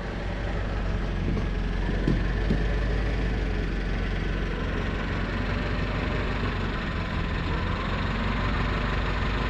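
Forklift engine idling steadily while it moves and loads nets, with a few short knocks about two seconds in.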